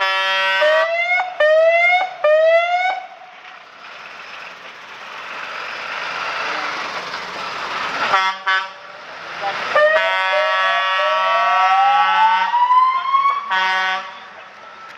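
Fire truck's siren and air horn as the MAN TGM turntable ladder truck drives past. There are short air-horn blasts at the start, about eight seconds in and near the end. Three quick rising siren whoops come in the first three seconds, the engine and tyres pass in between, and a longer rising siren wail with the horn held over it comes about ten seconds in.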